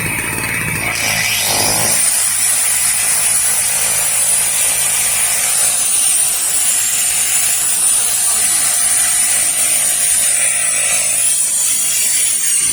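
A small 110-watt electric power tool running off a small portable generator. It starts about a second in and then runs steadily with a high whine over the generator's engine, which is carrying the load.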